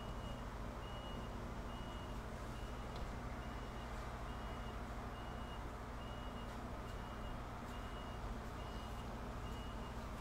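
A short high-pitched electronic beep repeating evenly about once a second, over a low steady hum.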